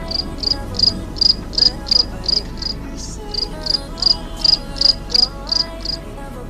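Cricket chirps, loud and evenly spaced at about three a second, with a short break near the middle, over background music.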